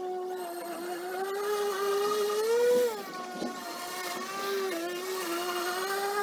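EGO battery-powered electric lawn mower running under way, a steady motor and blade whine whose pitch wavers up and down, a little louder for a moment near the middle.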